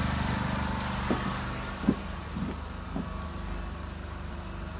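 A small engine running steadily with a low hum that eases off slightly, with a few short knocks about one to three seconds in.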